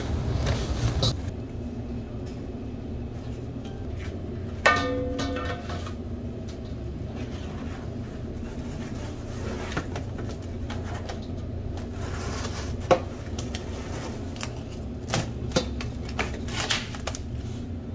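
Kitchen background noise: a steady low rumble with scattered clinks and knocks from food preparation, and a short ringing tone about five seconds in.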